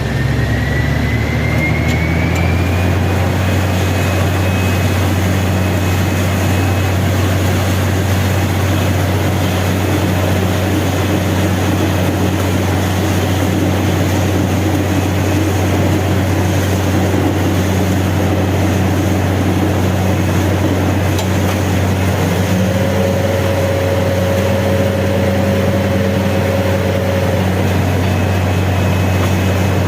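Borewell drilling rig machinery running with a loud, steady deep drone. A thin whine rises over the first few seconds, and a higher steady tone joins from about 22 to 27 seconds in.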